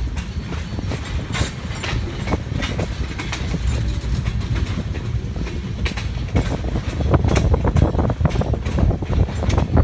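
Freight train of tank cars rolling past at close range: a steady low rumble of steel wheels on rail with repeated sharp clacks as the wheels cross the track, growing louder and busier about six seconds in.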